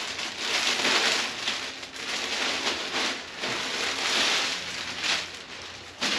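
Thin clear plastic bag crinkling and rustling as it is handled and packing cubes are pulled out of it.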